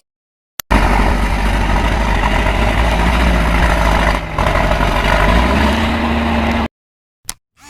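Heavy diesel engine running loud and steady, starting and stopping abruptly as a sound clip of about six seconds; a hum in it rises slightly in pitch about five seconds in.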